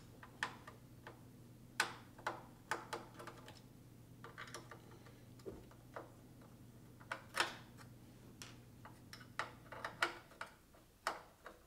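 Screwdriver working the screws out of a sheet-metal bar in an open instrument chassis: irregular light clicks and taps of the metal parts.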